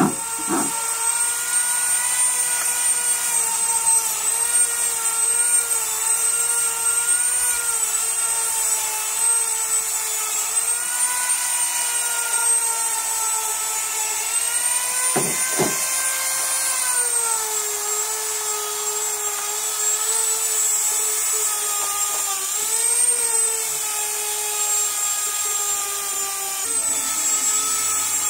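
A small high-speed power tool running steadily with a whining motor, its pitch wavering slightly as it works. There are a couple of light knocks about halfway through.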